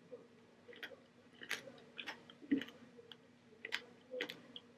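A person chewing pomegranate seeds: faint, irregular short crunches and clicks as the seeds are bitten, over a faint steady hum.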